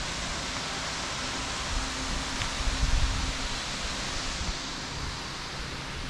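Steady rushing hiss of a hot spring waterfall, with an uneven low rumble underneath.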